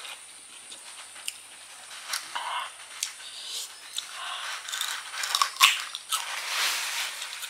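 Crisp, crunchy bites into and chewing of peeled green kedondong (ambarella) fruit, with scattered sharp crunches and a loud crunch about five and a half seconds in. A longer hiss comes near the end.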